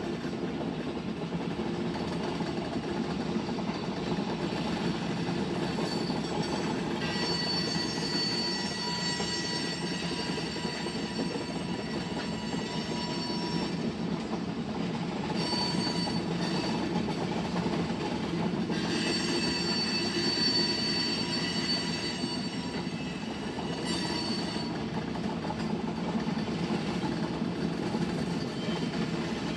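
Freight train of tank cars rolling past with a steady rumble of wheels on rail. A high-pitched metallic wheel squeal comes in about a quarter of the way through and keeps coming and going.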